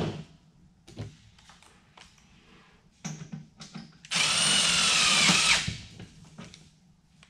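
Cordless drill run against a galvanized steel duct pipe, with a few handling clicks. There is a short burst about three seconds in, then a steady high whine for about a second and a half.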